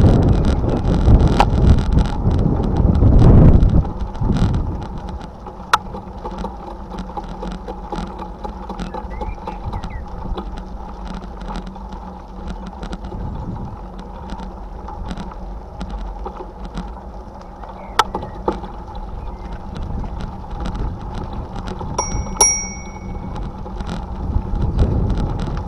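Tyres crunching and rattling over a gravel towpath, with wind buffeting the microphone for the first few seconds. Near the end a bicycle bell rings once, sharply, to warn walkers ahead on the path.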